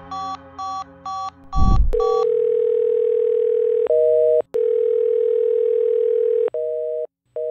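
Three short electronic beeps and a deep thud, then a steady telephone dial tone. About four seconds in, and again near the end, the dial tone gives way to short pulses of a two-tone busy signal, as on a dropped phone connection.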